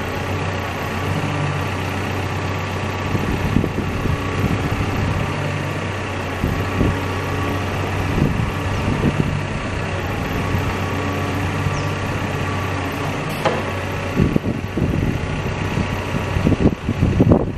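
Caterpillar backhoe loader's diesel engine running steadily, with irregular clunks and knocks over it from about three seconds in and a sharp click near the end.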